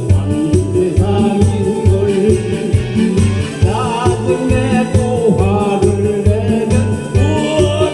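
A Korean song with a steady pulsing bass beat and a singing voice carrying a wavering, sliding melody.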